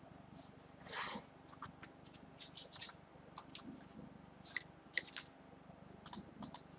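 Faint, scattered computer mouse clicks, irregular and sharp, with a short soft hiss about a second in.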